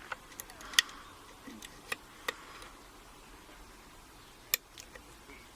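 Light metallic clicks from a flag pick working the pins of a Yale six-pin dimple rim cylinder held under Z-wrench tension. The clicks come irregularly, about eight of them, the sharpest about a second in.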